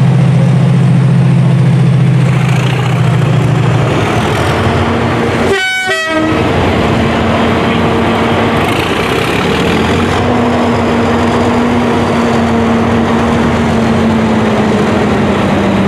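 Class 37 diesel-electric locomotives' English Electric V12 engines working as they move, a heavy low drone strongest for the first four seconds and then lower and steadier. The sound drops out briefly about six seconds in.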